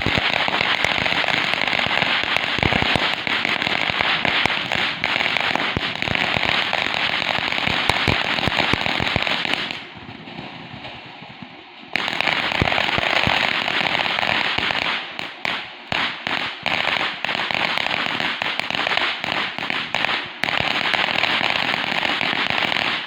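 Consumer fireworks crackling and popping in a dense, rapid stream. The crackling breaks off for about two seconds near the middle, then resumes with scattered separate pops before stopping near the end.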